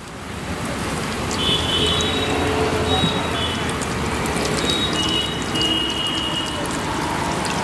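Batata vadas deep-frying in a large kadhai of hot oil: a dense, steady sizzle of batter in the oil that swells over the first second.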